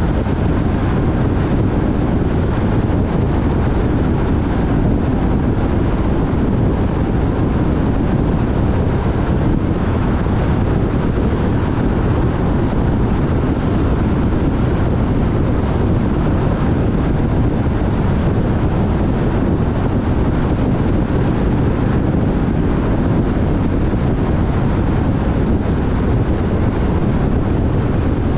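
Steady road and wind noise of a car driving along at a constant pace, a low, even rumble picked up by an onboard GoPro camera.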